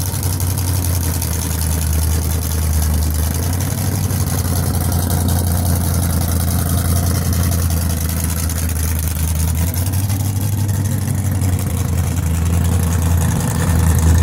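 1962 Chevy II gasser drag car's engine idling loudly as the car creeps along at walking pace, its note swelling a little near the end as it pulls away.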